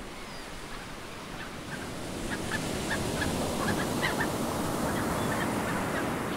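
Sea surf washing on a rocky shore, fading in and growing louder, with a string of short bird calls in the middle.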